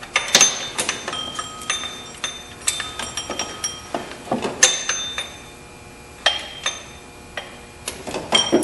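Ratchet and socket clicking and clinking against metal as the drive belt tensioner's mounting bolts are tightened. Irregular sharp clicks with short metallic rings, a brief lull a little past the middle, then more clicks near the end.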